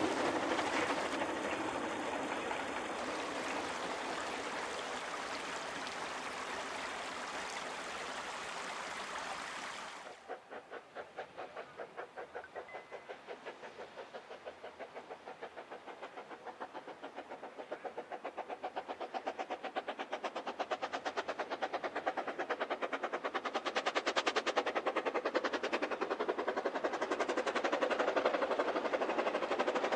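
Narrow-gauge steam locomotive hauling a goods train. At first there is the steady rumble of the train running along the track, fading away. About a third of the way in this gives way to the locomotive's fast, even exhaust chuffs, which grow louder as it approaches.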